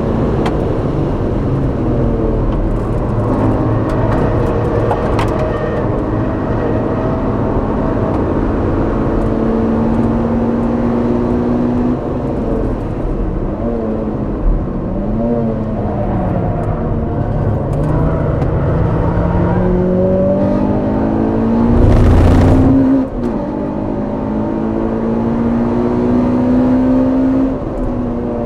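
Honda Civic Type R EP3's four-cylinder engine on track, heard through its exhaust. It revs up through the gears, dropping in pitch at each upshift and falling and blipping on braking. Just past the two-thirds mark there is a short, loud rush of noise, the loudest moment.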